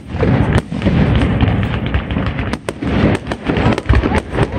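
Fireworks bursting close by in quick succession: many sharp bangs and pops with crackling between them.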